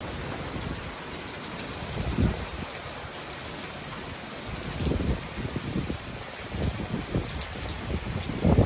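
Steady rain falling, with a few low gusts of wind buffeting the microphone about two seconds in, around the middle and near the end.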